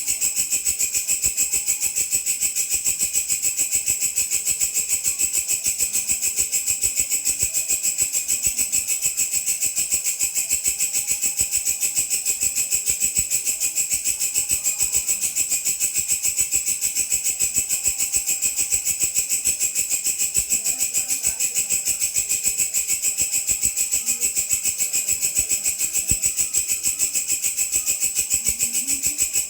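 Belalang (grasshopper) stridulating: a continuous, rapid pulsing buzz, high-pitched with its strongest pitch near 8 kHz, kept up without a pause.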